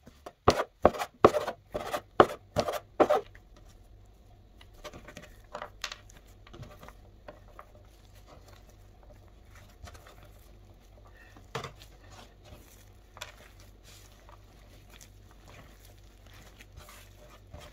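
Hands patting and slapping a roll of pan dulce dough on a tabletop: about eight sharp pats in quick succession, roughly three a second, then softer pressing and handling of the fruit-studded dough with an occasional knock.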